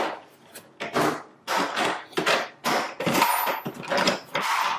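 Hard plastic tool case being handled: a string of short knocks and scrapes of plastic against plastic and the table.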